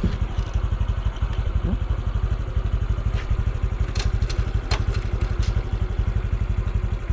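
Honda Super Cub C125's air-cooled single-cylinder four-stroke engine idling steadily with an even, rapid pulse. A few sharp clicks come around the middle.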